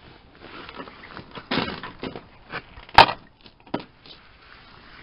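Scattered crunching and crackling with a few sharp clicks; the loudest is a single sharp click about three seconds in, with a smaller one just after.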